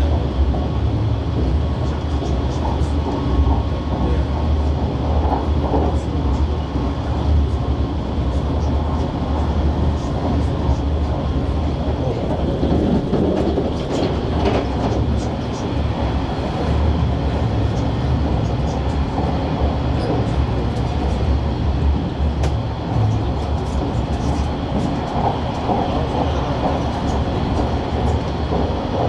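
JR Shikoku 8000 series electric train running at speed, heard inside the passenger car: a steady low rumble of wheels on rail and running gear, with occasional faint clicks.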